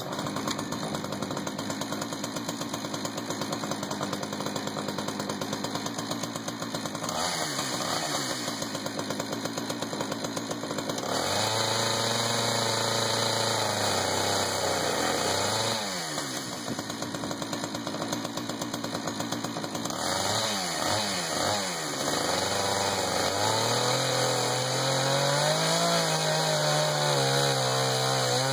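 Jonsered 2091 93 cc two-stroke chainsaw on a chainsaw mill, starting and idling, then revved up and down several times. It is held at high revs for a few seconds about a third of the way in, and again steadily from near the end as it begins ripping through a pine cant, the pitch sagging a little under load.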